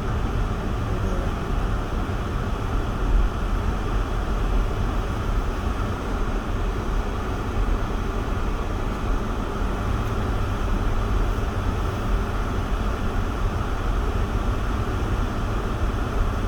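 Steady low rumble of a car driving on snowy roads: engine and tyre noise.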